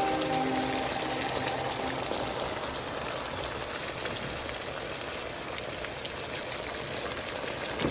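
Chicken in salsa, soy and chilli sauce sizzling and bubbling in a pan: a steady hiss.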